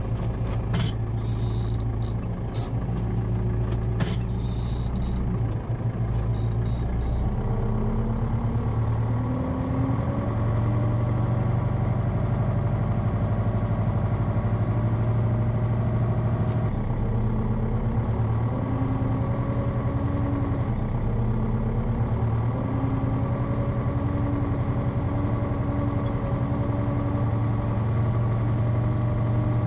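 Deutz-Fahr 4.70 tractor's diesel engine running steadily under the driver from inside the cab, its pitch stepping up and gliding now and then as engine speed changes. A few light rattles or clicks come in the first several seconds.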